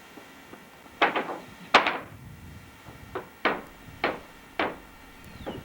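Hammering: about eight sharp knocks at uneven intervals starting about a second in, the first couple loudest.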